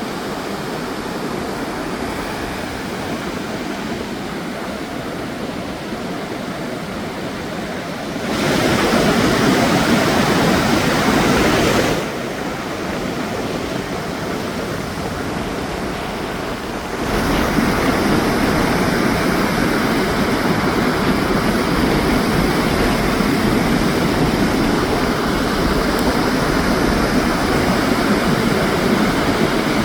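Sea surf washing onto a beach, a steady rushing noise that jumps louder about eight seconds in, drops back about four seconds later, and rises again around seventeen seconds.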